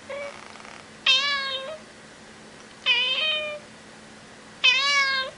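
A domestic cat meowing three times, about two seconds apart, each meow loud and a little under a second long, sliding slightly down in pitch. A short, softer call comes just before the first.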